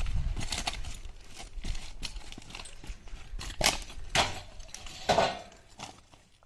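Handling noise of a metal frame being set down among loose stones: scattered knocks and clinks, loudest a little past halfway, over a low rumble at the start.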